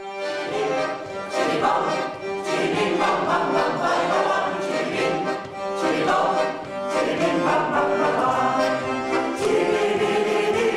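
Choir singing a song in several voices, with a piano accordion playing along.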